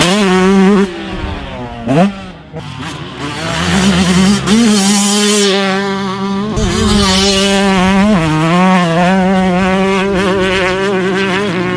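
2018 Yamaha YZ125's single-cylinder two-stroke engine revving hard while being ridden. The revs drop off about a second in and give a quick blip. They climb back a few seconds later and are then held high, with small dips and recoveries as the throttle is worked.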